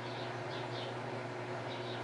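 LG WD12596 front-loading washing machine running mid-cycle, a steady hum under a wash of noise, with a few faint high chirps over it.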